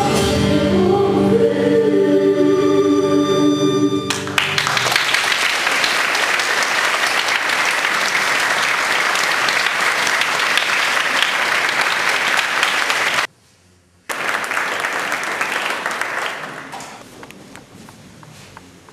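A mixed youth choir sings the last held chord of a Polish Christmas carol, ending about four seconds in; the congregation then applauds. The clapping breaks off for under a second past the middle, resumes, and fades away near the end.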